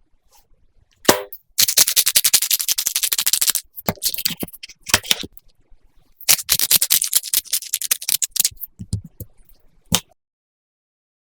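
Pork belly sizzling and spattering in an oiled frying pan: two stretches of dense crackling pops, each about two seconds long, with a few single knocks around them.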